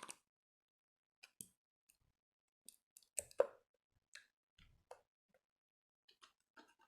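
Jiggly bottle slime being handled, giving scattered sticky clicks and small pops, with the loudest cluster a little past the middle.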